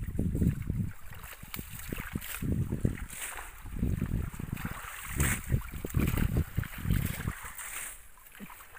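Water sloshing and splashing as people wade in shallow water, dragging a net and pulling out clumps of water hyacinth, over an uneven low rumble.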